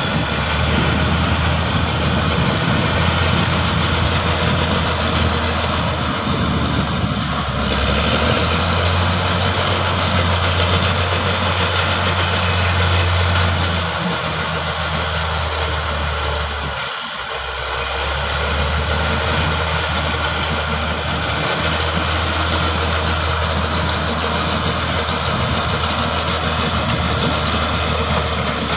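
Crawler bulldozer's diesel engine running under work, a steady low drone whose pitch steps up and down a few times as the engine speed changes, with a brief dip a little over halfway through.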